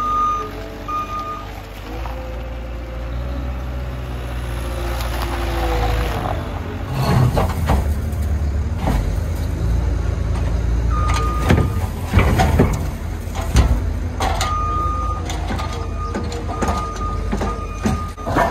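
Cat 256C skid steer's diesel engine working under hydraulic load as its rock grapple lifts broken concrete, then chunks of concrete and snow banging and clattering into the steel dump bed from about seven seconds in. A reversing alarm beeps at the start and again in the second half.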